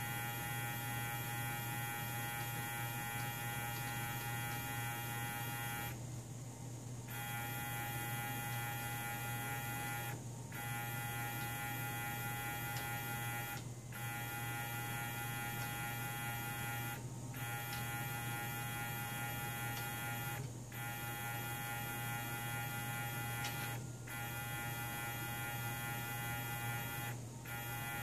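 Mendel90 3D printer's Z-axis stepper motors whining steadily as the axis is lowered, over a constant electrical hum. The whine breaks off briefly about every three and a half seconds between moves.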